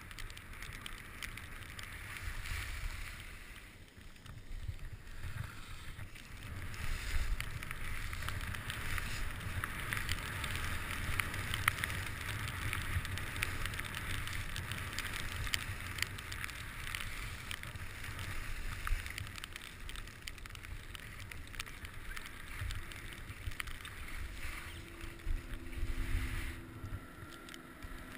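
Völkl skis hissing and scraping over packed snow during a downhill run, with wind buffeting the microphone. The sliding noise drops off near the end as the skier comes to a stop.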